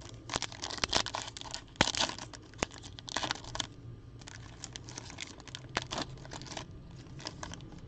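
Wrapper of a Panini Flux basketball card pack being torn open and crinkled by hand, in irregular bursts of crackling.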